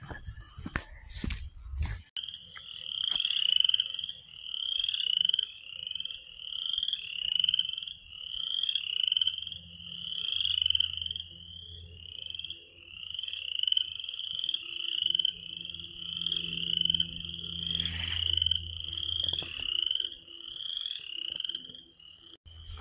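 A chorus of spring peepers: high, short, upslurred peeps, about one and a half a second, overlapping one another. The chorus starts abruptly about two seconds in and stops just before the end.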